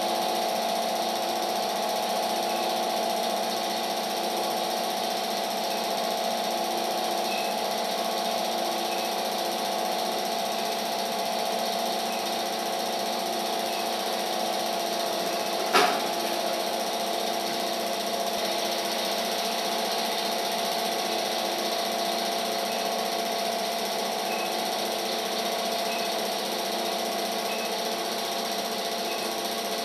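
Home-movie film projector running: a steady mechanical whirr, with one sharp click about halfway through.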